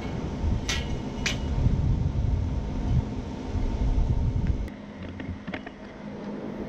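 Two sharp metallic clinks, about half a second apart, as lengths of steel angle iron are handled and lined up on concrete. They come over a steady low rumble and hum, and the rumble drops away abruptly about two-thirds of the way through.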